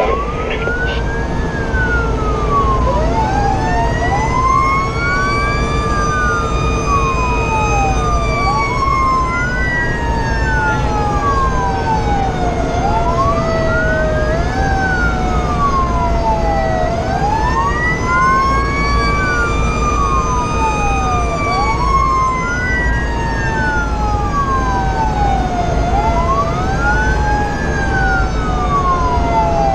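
A fire engine's sirens wailing while it runs to a call, heard from inside the cab. Two rising-and-falling tones overlap, one sweeping up and down every few seconds and the other slower, over steady engine and road noise.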